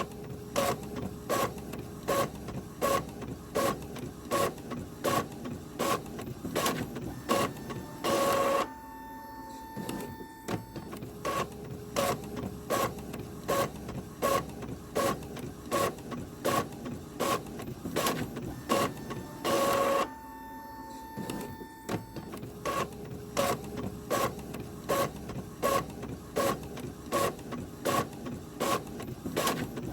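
Printer running a print job, its mechanism clicking in a fast, even rhythm. Twice, about eleven seconds apart, there is a longer, louder mechanical burst, each followed by a brief steady whine.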